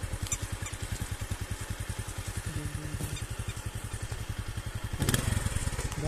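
An engine running steadily, with a rapid, even low thudding, growing louder with some clicks near the end.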